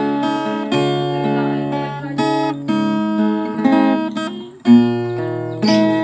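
Background music: acoustic guitar strumming chords, with a strong stroke about three-quarters of the way in.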